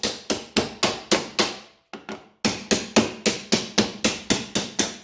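A hand tool tapping a metal hinge pin through the discharge chute's hinge on a riding mower deck, rapid metal-on-metal strikes about four a second with a brief ring after each. There are two runs of strikes, with a short pause about two seconds in.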